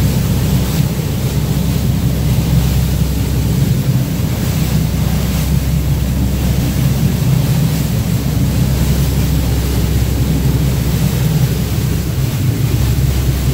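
Steady low rumble of a boat under way: engine drone and water rushing past the hull, with wind buffeting the microphone.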